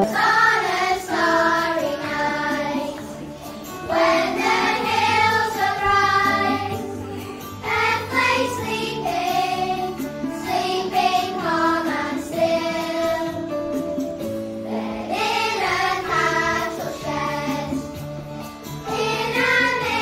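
Children's choir singing a Christmas song together in phrases, over a steady instrumental accompaniment.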